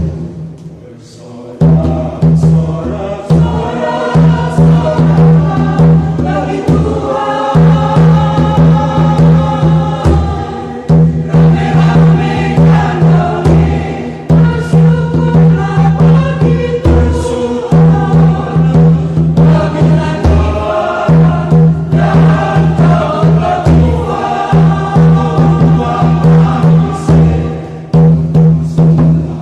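Church choir singing an upbeat hymn in harmony, accompanied by tifa hand drum beating a steady rhythm. The music dips briefly at the start and comes back in full after a second or two.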